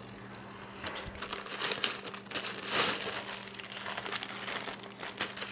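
Packaging of an engine gasket and seal kit crinkling and rustling irregularly as it is unwrapped by hand, loudest around the middle.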